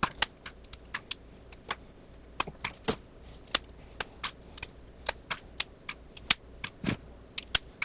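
Plastic ball-and-socket leg segments of a Joby GorillaPod being snapped apart by hand: a run of sharp, irregular clicks and pops, a few a second.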